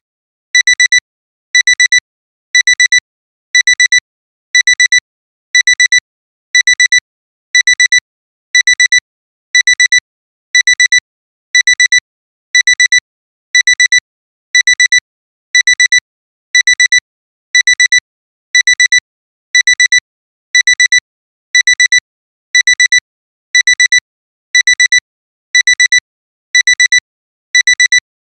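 Alarm clock alarm beeping: short clusters of quick, high-pitched electronic beeps repeating about once a second, signalling that the timer has run out.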